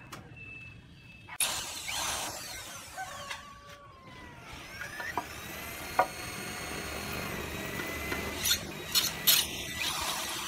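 Handheld power drill running in spells at changing speed as it fixes a roofing tile to the steel roof battens, with a few sharp clicks and knocks.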